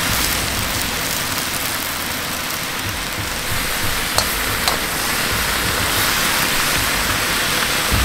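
Stir-fried cabbage and carrot sizzling steadily in a hot wok as soy sauce goes in and the vegetables are tossed, with a metal spatula clicking against the wok twice about four seconds in.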